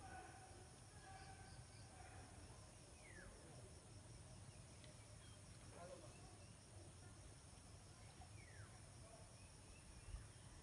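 Near silence with the faint, steady high-pitched chirring of insects such as crickets, pulsing evenly. Two short falling bird chirps come about three seconds in and again near the end.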